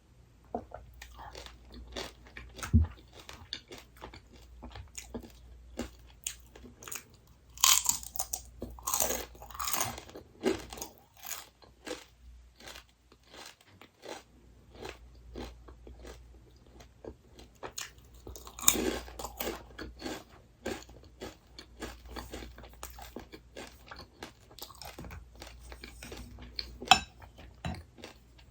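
A person chewing crunchy snack food close to the microphone: a steady run of crisp crunches and bites, with louder spells of crunching about a third of the way in and again just past the middle.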